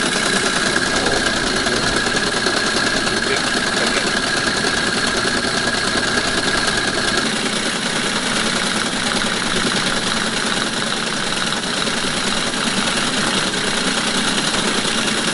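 ASR 33 Teletype printing and punching paper tape at the same time as it receives a message at 110 baud: a steady, rapid mechanical clatter from the type mechanism and the tape punch, which cuts off at the very end.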